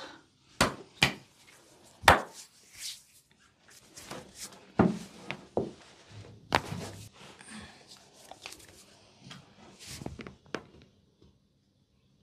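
A string of about ten sharp, irregular cracks and knocks from the man's body as his back and shoulders are twisted and stretched by hand. The loudest comes about two seconds in, and the sound goes quiet near the end.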